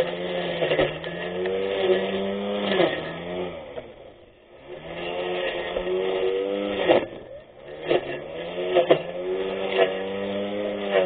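A 24V brushless electric grass cutter's motor running with a steady whine, with sharp ticks and cracks as the blade hits grass and stems. The motor winds down and speeds back up twice, most deeply about four seconds in and again near seven seconds.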